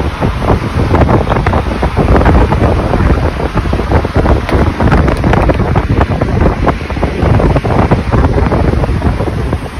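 Heavy wind buffeting the microphone of a phone held in a moving vehicle, a loud, constant gusty rumble mixed with road and traffic noise.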